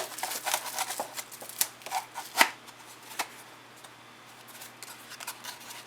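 Wooden puzzle box piece being pushed down into a snug, plastic-wrap-lined box: crinkling plastic and quick clicks and knocks of wood. The sounds come thick in the first three seconds, the loudest knock about two and a half seconds in, then a few soft ticks.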